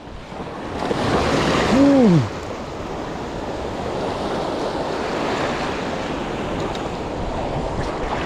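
Rough sea waves washing and wind on the microphone, a steady rushing that swells louder about a second in. A brief rising-and-falling cry comes about two seconds in.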